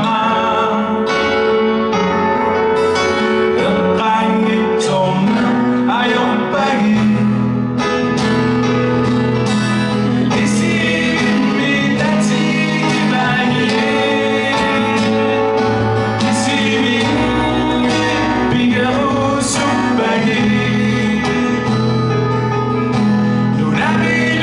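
Man singing to his own strummed acoustic guitar, a live solo performance.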